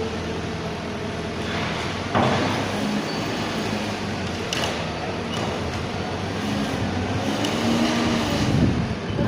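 Heavy machinery running with a steady hum whose pitch drifts up and down, and a sudden louder noise about two seconds in.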